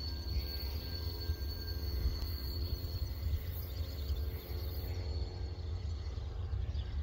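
Two TasRail TR class diesel locomotives approaching at the head of a log train, their engines giving a steady low rumble. A faint, steady high tone sits above it.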